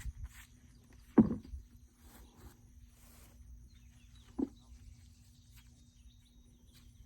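Two sharp knocks, a loud one about a second in and a softer one about three seconds later, amid faint rustling of hands at work in a potato harvest.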